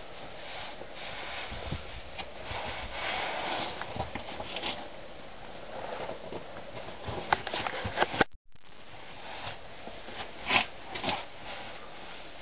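Boots scuffing and scraping on sandstone and clothing rubbing against rock as a climber works down a narrow boulder-choked chimney. A cluster of sharp scrapes comes about two-thirds of the way through, and two more come near the end.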